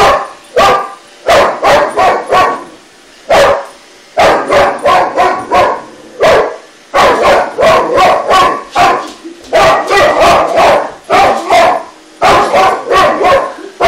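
Boxer dog barking repeatedly in rapid volleys with short pauses, challenging an iRobot robot vacuum.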